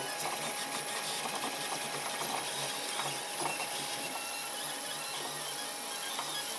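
Protomaker Black Sprint FDM 3D printer printing: its stepper motors whirr in short, irregular runs over the steady hiss of a cooling fan.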